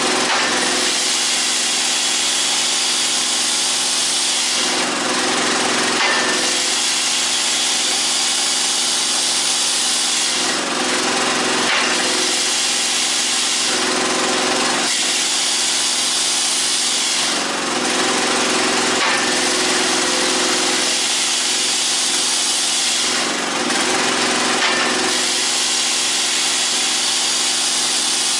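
Homemade firewood processor running through its cycle with no log: the hydraulic chainsaw bar swings down and back up with its chain spinning, over the steady run of the hydraulic drive. The sound shifts in a repeating pattern every few seconds with each stroke.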